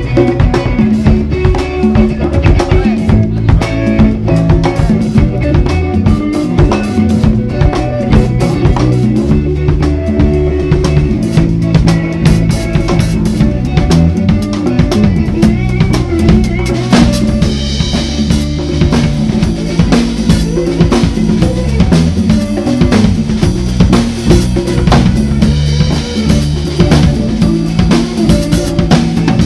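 Live band music: a drum kit with bass drum and snare playing over a bass guitar line and an electric guitar.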